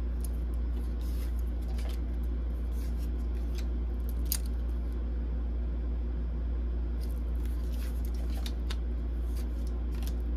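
Tarot cards being handled and sorted: scattered light slides and clicks over a steady low hum, with one sharper click about four seconds in.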